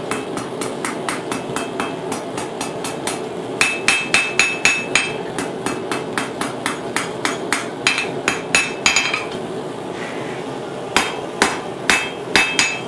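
Hand hammer striking a red-hot steel spoon blank on an anvil, about three blows a second. Some runs of blows carry a bright metallic ring. The hammering pauses for about a second and a half two-thirds of the way in, then resumes. A steady low hum runs underneath.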